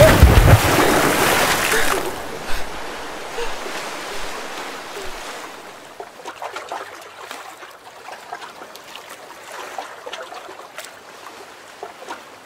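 A heavy splash of bodies falling into the sea: a loud crash of water with a deep thud that dies away over a few seconds. It is followed by fainter lapping and trickling water with small drips.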